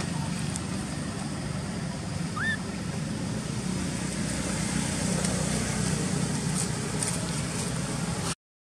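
Steady low outdoor background noise, with one short rising squeak about two and a half seconds in. The sound drops out completely for a moment near the end.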